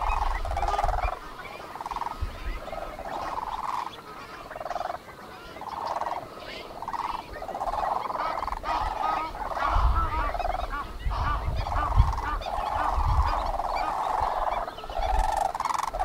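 Many waterbirds calling together across a wetland pan, with short overlapping calls one after another. A low rumble comes and goes underneath, strongest past the middle.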